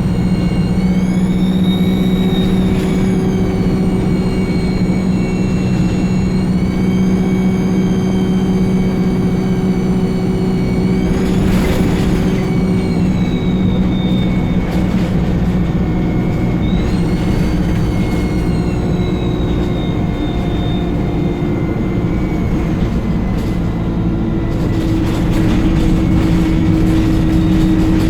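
Turbocharger of an ADL Enviro 200 bus (E20D chassis) whistling loudly over the diesel engine's drone. The whistle rises as the bus pulls away and falls back as it eases off, several times over.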